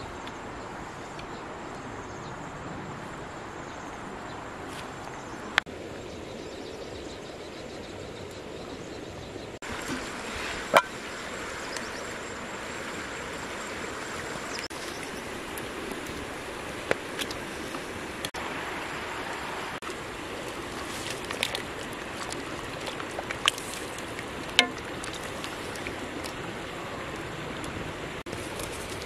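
Steady rushing of a flowing stream, with scattered sharp clicks and knocks from about ten seconds in.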